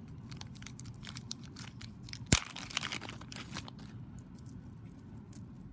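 Small clear plastic zip bag crinkling and crackling in the hands as it is pulled open and a bead strand is taken out, with one sharp snap a little over two seconds in.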